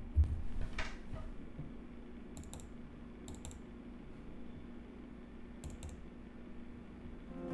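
Soft clicking of a computer mouse and keyboard: a few low bumps in the first second, then three quick double clicks spread over the rest.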